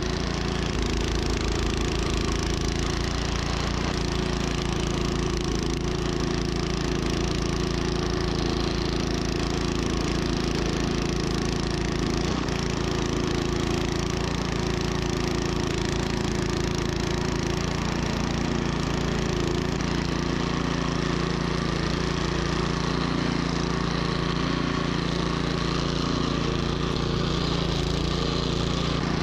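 Troy-Bilt snowblower's single-cylinder engine running steadily at a constant speed.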